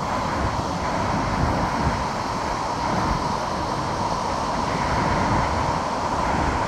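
Steady rushing roar of Gullfoss, a large waterfall on a glacial melt river, with wind buffeting the microphone.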